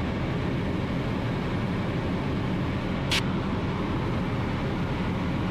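Ultralight aircraft's engine and propeller droning steadily, heard from inside the cockpit. There is a single short click about three seconds in.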